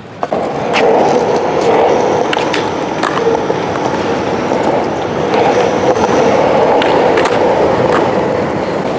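Skateboard rolling, its wheels giving a steady rumbling noise that builds up within the first second, with scattered sharp clicks and knocks along the way.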